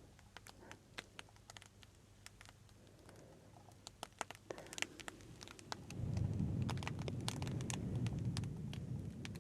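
Close-miked ASMR crackling: scattered sharp crackles and ticks. About six seconds in, a louder low rumbling noise joins them.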